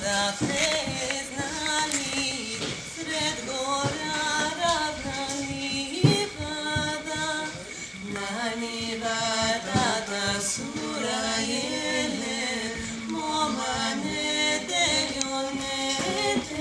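A vocal trio, two women and a man, singing unaccompanied in Balkan-style close harmony, with one voice often holding a low steady note beneath the moving upper parts.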